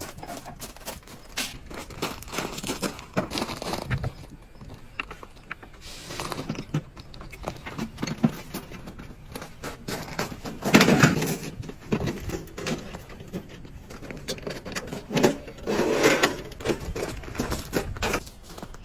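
Handling noises: scattered clicks, knocks and crinkling, with louder rustling about halfway through and again near the end.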